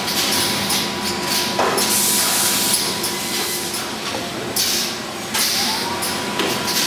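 Autimak M-100 T-shirt folding and bagging machine running: steady mechanical clatter with repeated bursts of hiss and a thin whine that climbs in pitch a little over five seconds in.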